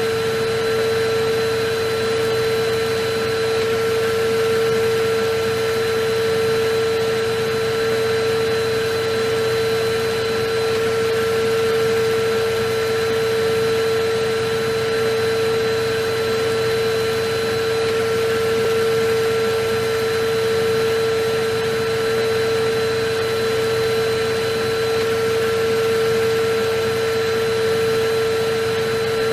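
Electric vacuum cleaner running continuously at one steady speed: an unchanging motor whine over an even rush of air.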